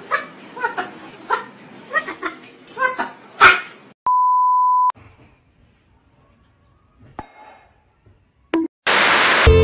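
A cockatoo's short calls, repeated about every half second, with a louder one near the middle of them. Then comes a steady test-card beep at one high pitch, lasting under a second, a few faint taps, and a loud burst of noise near the end.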